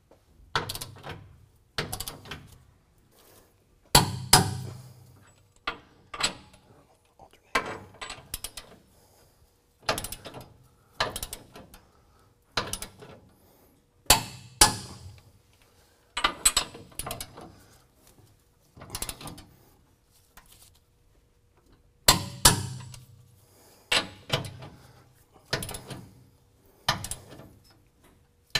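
Ratcheting torque wrench clicking in short back-and-forth strokes, a burst of pawl clicks every second or so with a few pauses, as large bolts are run down and torqued to 150 foot-pounds.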